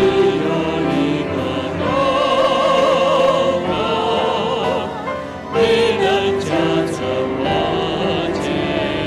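A Christian hymn sung with vibrato on held notes, over instrumental accompaniment.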